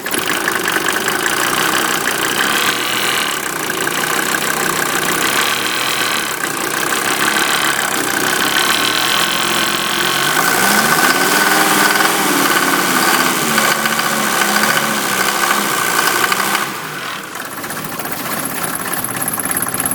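1988 Mercedes 190D diesel engine, running on waste vegetable oil, with a loud clanging that the owner cannot identify and wonders is normal. Its pitch rises and falls back once, about halfway through, and the level drops a little near the end.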